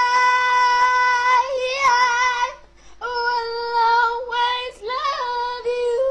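A man singing long, high held notes: three sustained notes with short breaks between them, the last swooping up into pitch.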